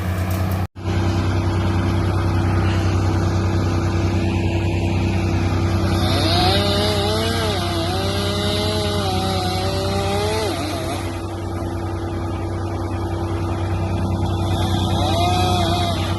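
A large engine running steadily at constant speed, cutting out for an instant under a second in. In the middle a second, higher tone wavers up and down over it for several seconds.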